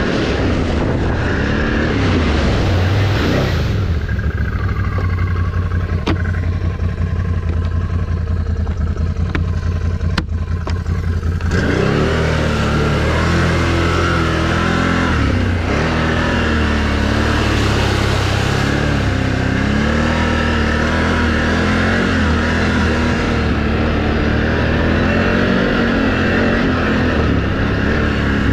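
Can-Am Renegade XMR 1000 ATV's V-twin engine running under throttle, its pitch rising and falling as it revs. A few seconds in it eases off to lighter running for several seconds with a few sharp knocks, then pulls strongly again for the rest of the ride.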